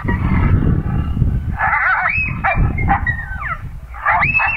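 Coyote-style howls and yips: high calls sliding up and down in pitch, starting about one and a half seconds in and coming again near the end, over a steady low rumble.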